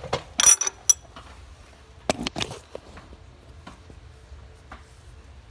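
A steel spanner wrench clinks against the ATV's flywheel and puller as it is worked into the flywheel's holes. There is a quick cluster of sharp, ringing metallic clinks in the first second, a couple of louder clanks about two seconds in, then a few faint ticks.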